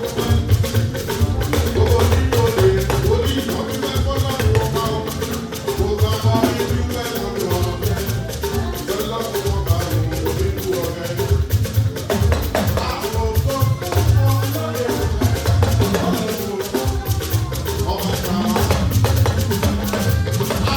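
Band music with a fast shaker rattle keeping a steady beat over heavy bass.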